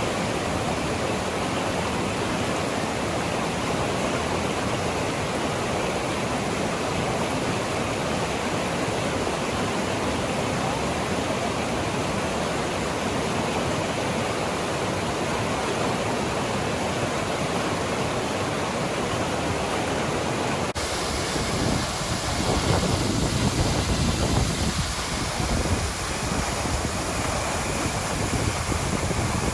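Waterfall rushing: a steady, dense roar of falling water. About two-thirds of the way through the sound shifts suddenly, with a deeper rumble that rises and falls unevenly.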